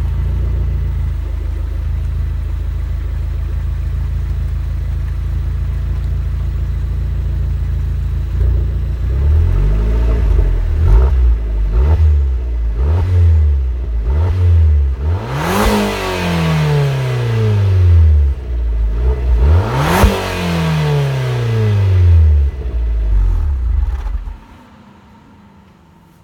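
Alfa Romeo MiTo 1.4 turbo's four-cylinder engine through its factory exhaust. It idles steadily, is blipped several times, then revved hard twice with the revs falling slowly back to idle, and cuts off near the end. The owner feels the 2009 muffler's ageing has made it slightly louder.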